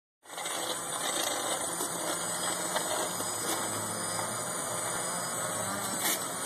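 Small quadcopter's electric motors and propellers whirring steadily while it hovers.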